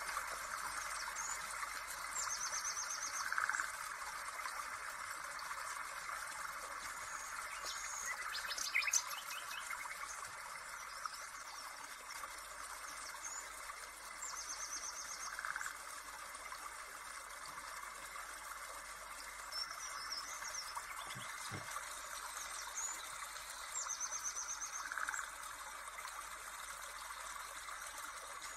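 Outdoor nature ambience: birds chirping, with a short high trill that comes back every ten seconds or so, over a steady rushing hiss like running water.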